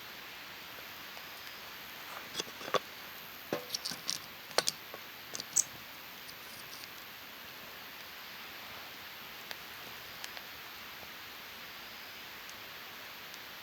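Wood fire crackling: a burst of sharp pops and snaps from about two to six seconds in, then a couple of single pops later, over a steady hiss.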